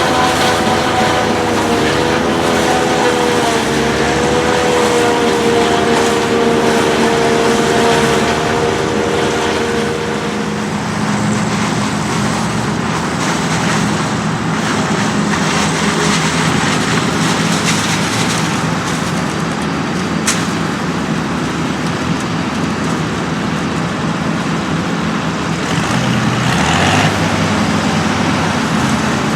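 Farm tractors and a tractor-drawn maize forage harvester running during chopping. A high whine wavers in pitch for about the first ten seconds and then stops, leaving a steady, lower engine sound.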